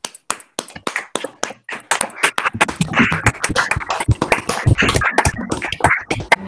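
Several people clapping over a video call: scattered claps at first, building to dense applause about two seconds in.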